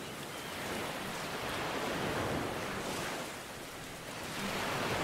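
Ocean surf: a steady rush of waves that swells, eases a little past three seconds, and builds again near the end.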